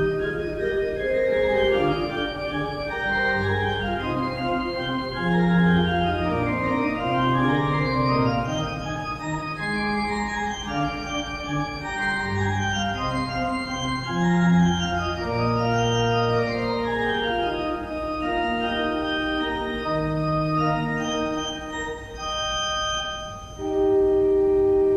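Organ music: several voices of sustained notes moving in slow lines over the bass, settling into a long held chord near the end.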